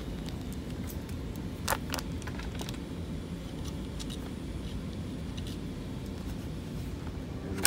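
Light metallic clicks and rattles as a valve actuator and its flexible metal conduit are handled and worked loose from a globe valve, over a steady low machinery hum.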